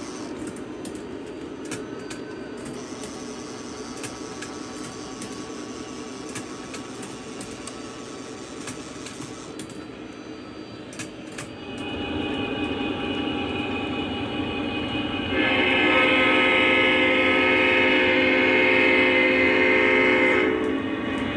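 Lionel O-gauge model freight train rolling on three-rail track, with wheel clicks at the rail joints. About twelve seconds in, the locomotive's digital diesel engine sound swells up. A few seconds later its multi-note horn sounds in one long blast of about five seconds that cuts off sharply near the end.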